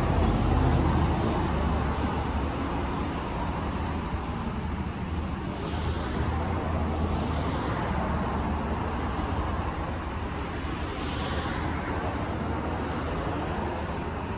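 Autec 260 automatic car wash running: a steady low machine hum under a continuous hiss of water spray.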